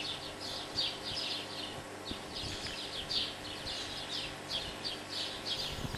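Birds chirping: short high chirps repeating about two or three times a second, over a faint steady hum.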